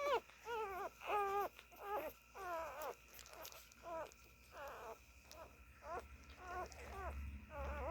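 Young Siberian husky puppies whining and squeaking as they nurse: a string of short, high-pitched, wavering cries, about one or two a second, louder in the first couple of seconds.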